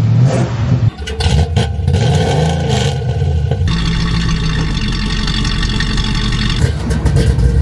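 Classic car engine running and being revved, in short edited cuts, with a sudden change in the sound about a second in and again a little past halfway.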